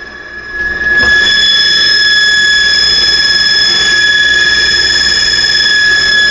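Faulty refrigerator giving off a loud, steady high-pitched squeal with no pulsing, which jumps louder about a second in.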